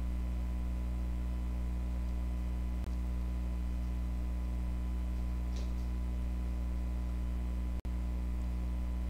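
Steady low electrical hum with a faint constant higher tone and hiss, typical of mains hum on the microphone line. A faint tick about halfway, and the sound cuts out for an instant near the end.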